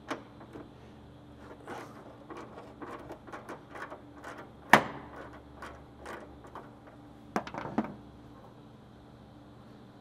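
Ratchet wrench with a Torx bit clicking in short runs as a bed D-ring bolt is backed out, with one sharp metallic knock, the loudest sound, a little before halfway and two more knocks near the end.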